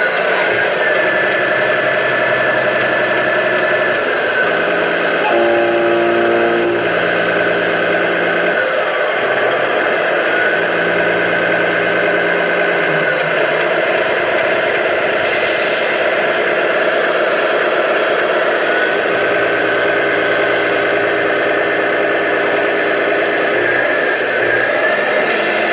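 Radio-controlled Scania 113 model truck driving, with a steady engine-like drone whose pitch rises and falls as it moves. A brief louder stepped tone comes about five seconds in.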